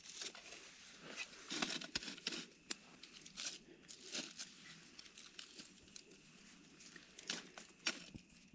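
Irregular crinkling and scraping as peppers are pushed down into glowing campfire embers and the coals and ash are worked around them, with a couple of sharp clicks.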